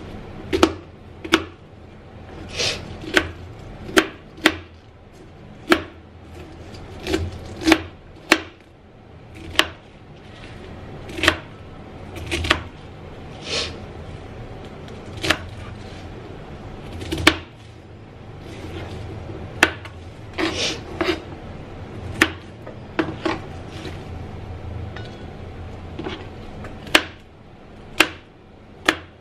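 Small kitchen knife chopping crisp leafy greens on a plastic cutting board: irregular sharp knocks of the blade on the board, roughly one a second, some with a short crunch of leaves being cut through.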